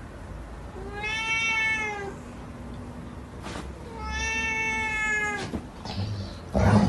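Orange tabby cat giving two long meows, about a second each, the pitch arching up and then down. A short sharp knock near the end is the loudest sound.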